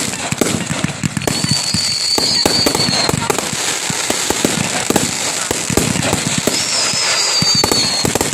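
Fireworks display at close range: a dense, rapid run of bangs and crackling bursts. Twice, a high whistle sounds over them for a second or two, first about a second in and again near the end.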